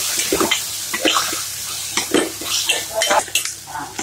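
Steel spoon stirring and scraping inside a stainless steel pot, clinking irregularly against its sides and bottom several times a second as it works through a thick frying tomato and onion mixture.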